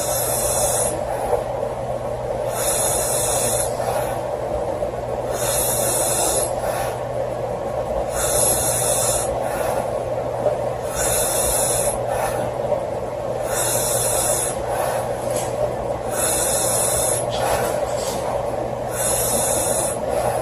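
A woman snoring in her sleep: a hissing breath about every two and a half to three seconds, eight in all, over a steady background hum.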